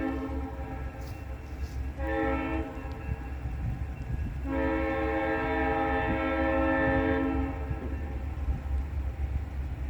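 Great Lakes Central locomotive air horn sounding a multi-note chord: a blast ending just after the start, a short tap about two seconds in, then a longer blast of about three seconds. Underneath runs the steady low rumble of the passing train.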